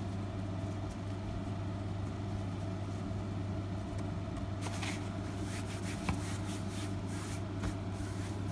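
A steady low hum throughout. From about halfway on, soft scratchy rustling and a few small clicks as gloved hands squeeze the water out of wet dyed sari silk and pull it open.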